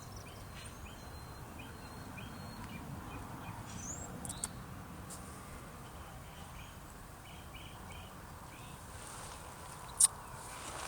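Faint steady outdoor background noise with scattered short, high chirps and a single sharp click about ten seconds in.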